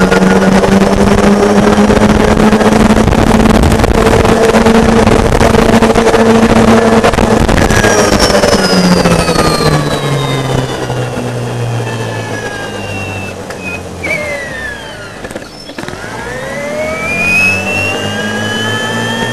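Golf cart's D&D 12 HP separately excited DC motor whining steadily at speed over a loud rushing noise. About eight seconds in, the whine falls in pitch and the noise fades as the cart slows. It bottoms out around fifteen seconds, then rises again as the cart speeds back up.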